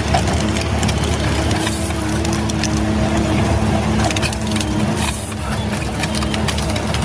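A heavy machine's engine running steadily, with a constant crackling and crunching as material is crushed and splintered.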